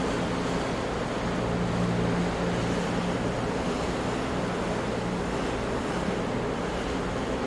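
Ocean waves breaking on rocks, an even continuous rush of surf with no single crash standing out. A low steady hum sits underneath through much of it.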